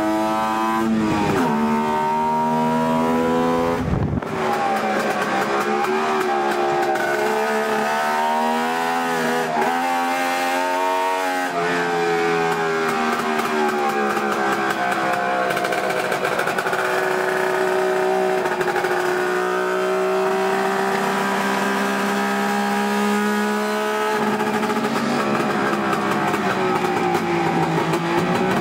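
DKW 1000 cc three-cylinder two-stroke engine racing, heard from inside the car's cabin. The revs climb and fall again and again, with sharp drops about one, four and eleven seconds in.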